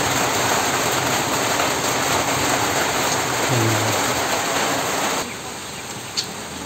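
Steady rain falling, an even hiss that drops abruptly to a much quieter hiss about five seconds in.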